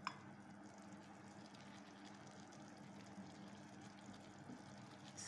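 Near silence: a faint steady low hum, with one short click right at the start.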